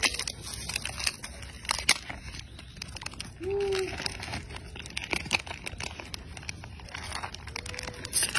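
Plastic snack wrapper crinkling and crackling in irregular bursts as macaques paw and tug at it. A short pitched call sounds about three and a half seconds in.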